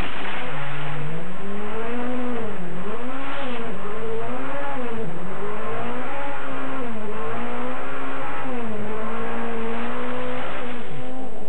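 Peugeot 405 Turbo 16 rally car's turbocharged four-cylinder engine heard from on board, driven hard up a gravel hill climb. The engine pitch repeatedly climbs and drops as the driver accelerates and lifts through the bends, over a steady rush of road noise.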